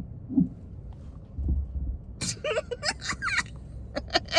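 Low rumble of a car interior on the move, then a person bursting into laughter about two seconds in, turning into quick rhythmic giggles, about four a second, near the end.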